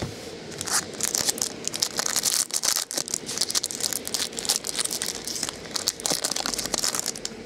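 Thin clear plastic wrapping crinkling and crackling as a trading card is worked out of it by hand. It is a dense run of sharp crackles that starts about a second in and stops near the end.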